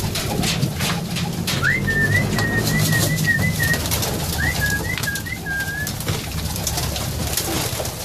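A flock of Budapest highflyer pigeons cooing in a loft, with wings flapping as the birds crowd onto a feeding trough. Twice in the middle, a short run of high chirping notes cuts through.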